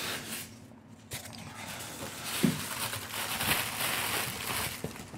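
A cardboard shipping box being torn and pulled open by hand, with the rustling and crinkling of cardboard and packing and a knock about two and a half seconds in.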